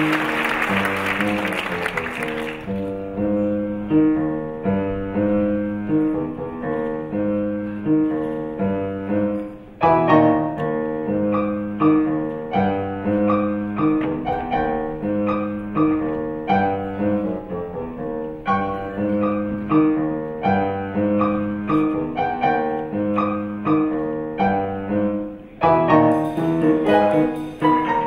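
Piano-led backing music with a steady repeating figure over a bass line, louder from about ten seconds in, with a brighter high layer joining near the end. Audience applause dies away in the first couple of seconds.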